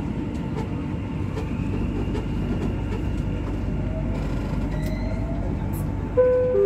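Dubai Metro train heard from inside the carriage as it pulls out of a station and gathers speed: a steady rumble with a faint rising motor whine about four seconds in. Near the end a loud, steady two-note electronic tone sounds.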